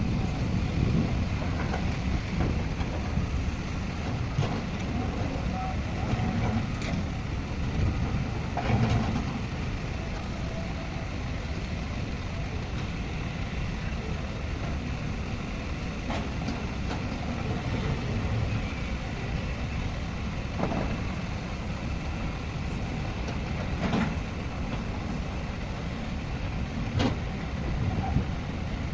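Heavy earthmoving machinery: a diesel engine running steadily, with occasional short clanks.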